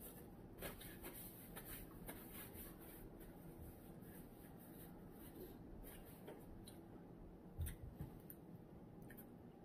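Near-quiet room with faint scattered clicks and light rustling from small handling noises, and one soft, deeper thump about seven and a half seconds in.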